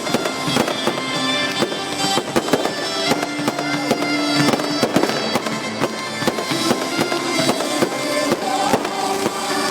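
Fireworks display going off: many sharp bangs and crackles in quick succession, over music played along with the show.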